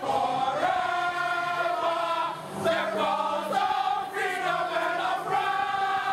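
A group of football supporters singing a chant together, holding long notes that change pitch about once a second.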